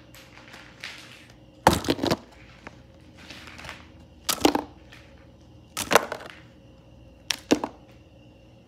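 Small hard plastic toy animal figures clattering against each other as they are rummaged through in a box, in four bursts of clicking about a second and a half apart, with softer rustling between.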